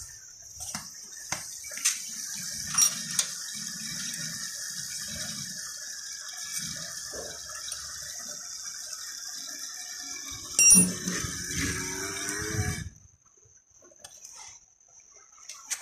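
Small electric pump of a disinfectant spray gun converted into an oil extractor, running steadily with a liquid hiss as it draws oil through a hose into a bottle. There is a loud knock about 11 seconds in, and the pump stops about 13 seconds in.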